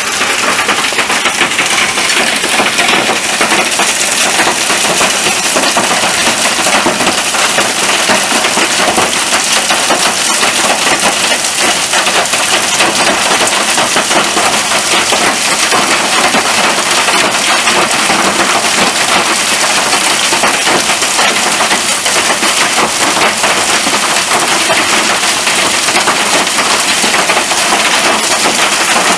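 Heavy thunderstorm downpour: rain falling hard and steadily, a dense patter full of sharp little ticks of drops hitting hard surfaces.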